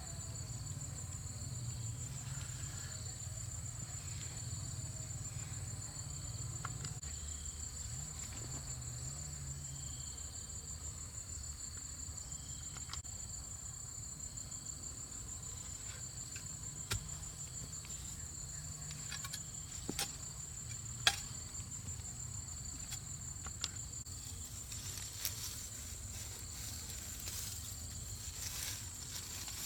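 Steady chorus of insects, a continuous high trill, with a few scattered light clicks and knocks.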